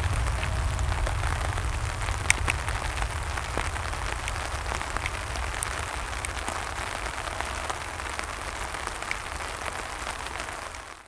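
Steady rain falling, with scattered drops ticking sharply near the microphone, over a low rumble from a departing Airbus A320-232's IAE V2500 jet engines that slowly fades. The sound cuts off just before the end.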